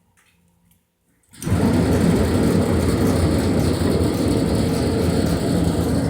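Homemade metal-melting furnace's burner firing up about a second and a half in, going straight from near silence into a loud, steady rushing noise.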